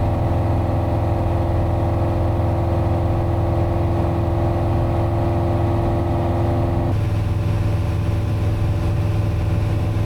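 Piper Archer II's four-cylinder Lycoming engine and propeller droning steadily in flight, heard from the cockpit; the tone changes abruptly about seven seconds in.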